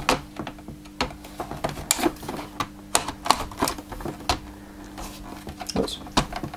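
Irregular sharp plastic clicks and knocks as the brush bar is fitted back into a Dyson DC04 upright vacuum's cleaner head and the head is handled.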